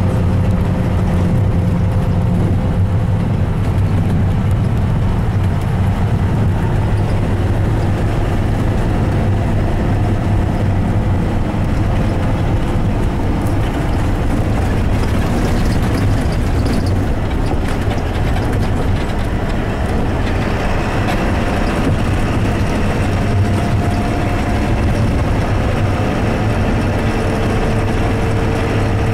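Bus engine and road noise heard from inside the cabin while driving, a steady low drone.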